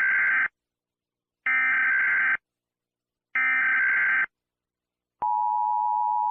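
Emergency Alert System SAME header: three bursts of digital data tones, each about a second long, marking the start of a new alert. About five seconds in, the steady two-tone EAS attention signal begins.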